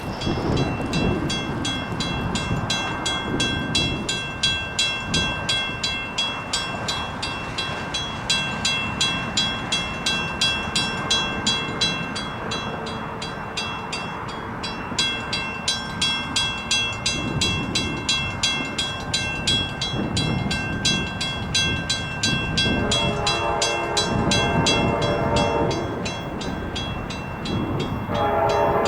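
Grade crossing bell ringing steadily, about twice a second. A train's horn sounds a chord from about 23 seconds in for a few seconds, and again just before the end.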